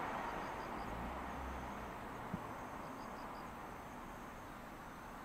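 Faint rumble of a distant train on the line, slowly fading, with an insect chirping high in short runs of four every couple of seconds. A single soft knock about two seconds in.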